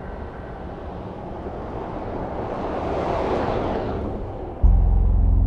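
Rushing traffic noise swells as a vehicle passes, peaking about three seconds in and then fading. Near the end a loud, low droning music tone cuts in suddenly.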